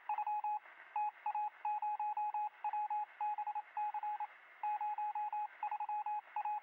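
A long run of short electronic beeps at one steady pitch, in quick irregular clusters, over a faint hiss on a police radio scanner feed.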